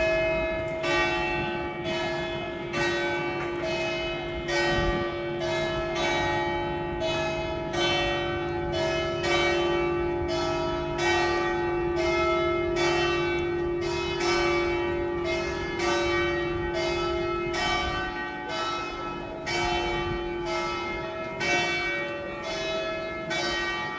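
Church bells of St Mark's Campanile ringing in a continuous peal: several bells of different pitch struck in a steady rhythm of about three strokes every two seconds, over a sustained bell hum.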